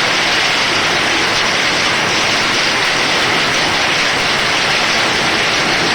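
Heavy rain mixed with hail pelting down: a loud, dense, steady hiss with no let-up.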